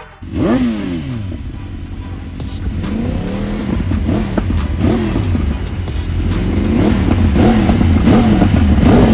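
Sportbike engine on a paddock stand being revved in short blips over a low idle, its pitch rising and falling again and again, with the blips coming closer together toward the end.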